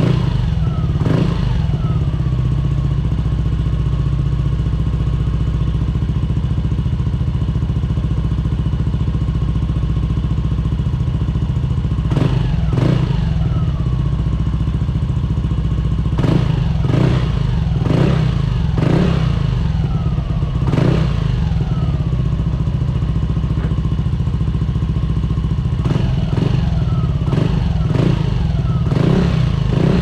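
Yamaha Aerox 155's single-cylinder four-stroke engine running through an aftermarket K'RACE Standard Racing exhaust, idling steadily with repeated short throttle blips whose pitch rises and falls back, bunched in the middle and near the end.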